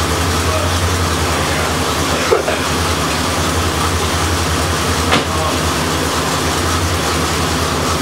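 1985 Corvette's 5.7-litre Tuned Port Injection V8 idling steadily with the air conditioning running, a low steady hum. Two faint clicks, about two and five seconds in.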